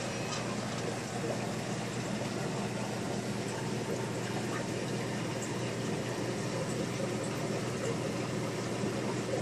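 Aquarium air pump and air-driven filter running: a steady low hum under a constant wash of bubbling water.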